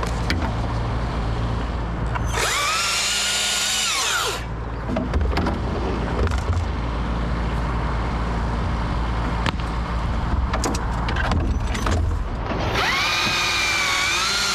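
Husqvarna T542i XP battery top-handle chainsaw cutting wood in two bursts of about two seconds each: the motor's whine rises and then holds steady through each cut, without bogging down. A steady low rumble runs underneath.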